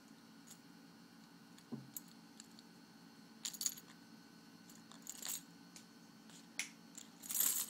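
A bunch of metal keys jingling and clinking in short, scattered bursts as a kitten bats and drags them across carpet, with the loudest jangle near the end.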